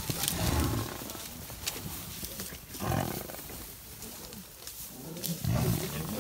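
Lions and a Cape buffalo fighting: deep, rough growls and bellows in short bursts, three times a couple of seconds apart.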